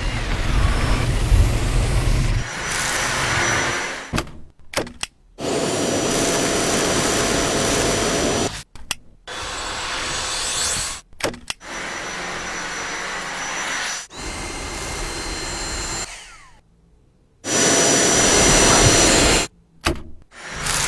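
Cordless stick vacuum cleaner running in a string of short clips. Each is a steady motor whine over a hiss of suction and stops abruptly, with a deep rumble in the first two seconds or so.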